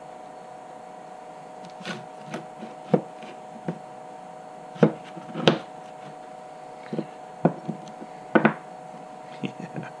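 Handling noise: about ten scattered clicks and knocks as a LiPo battery, its wire leads and a metal soldering jig are moved about and set down on a wooden desk, over a steady hum.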